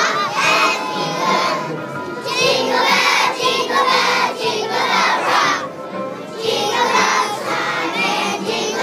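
A group of kindergarten children singing a song together in phrases, many voices at once.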